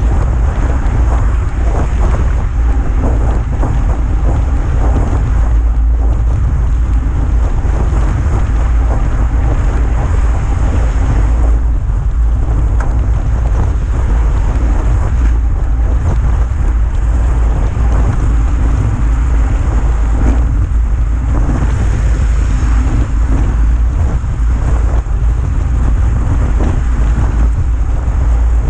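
Loud, steady wind rush buffeting the microphone of a bike-mounted action camera as the bike rides along at speed.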